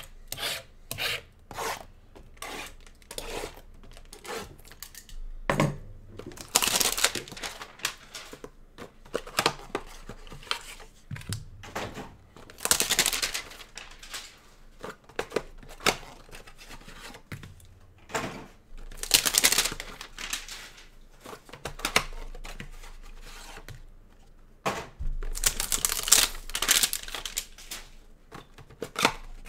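Trading card boxes and packs being torn open by hand. There are four bursts of tearing wrapper, a second or two each, between lighter rubbing and tapping of cardboard and cards.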